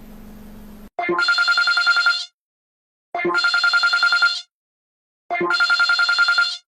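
Telephone ringtone ringing three times. Each ring is about a second and a quarter of rapid trilling at a steady pitch, with about a second of silence between rings, after a faint low hum in the first second.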